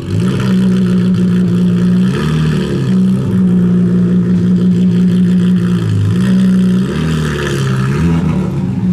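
Bugatti Veyron Grand Sport Vitesse's quad-turbo W16 engine idling as the car creeps forward, a steady engine note that wavers and dips briefly a few times.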